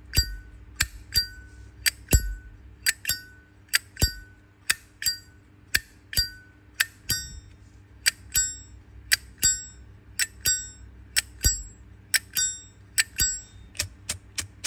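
A high-polish chrome Zippo lighter's hinged lid flicked open and snapped shut again and again, about two to three clicks a second; many of the openings give the lighter's bright, ringing metallic "ching".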